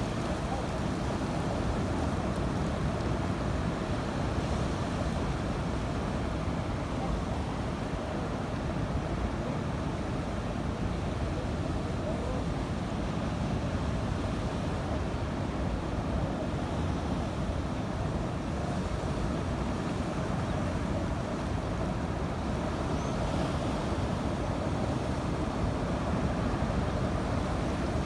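Steady rushing noise of sea waves and wind on the microphone, with no distinct breaks or impacts.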